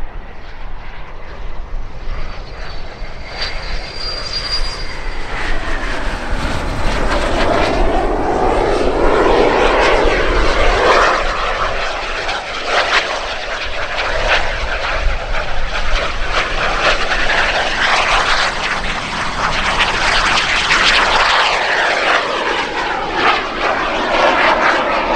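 A small aerobatic airplane's engine running through a display routine, its pitch sliding up and down as it manoeuvres and passes. It grows louder about a third of the way in and swells again later.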